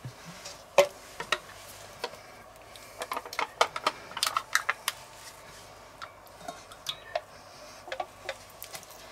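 Light clicks and taps of plastic cream cups against a stainless steel mixing bowl as cream is emptied in. There is a sharper click about a second in and a quick run of taps around the middle.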